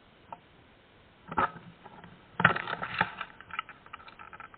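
Dry leaves and twigs crackling and rustling as a person shifts in the undergrowth: a short crackle about a second and a half in, a louder, denser spell of crackling halfway through, then scattered small clicks.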